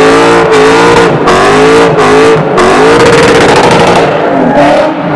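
Lexus IS F's 5.0-litre V8 held at high revs during a burnout, its pitch repeatedly dipping and rising as the rear tyres spin and smoke. The engine fades out near the end.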